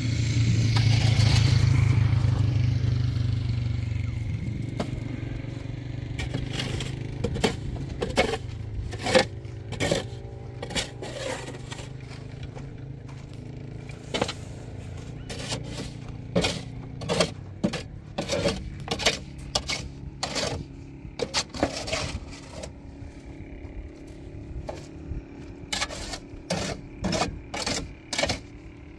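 Shovel scraping and clanking against a wheelbarrow and metal basin as concrete is shovelled up and tipped out, heard as a run of sharp, irregular knocks and scrapes. A low rumble fades away over the first few seconds.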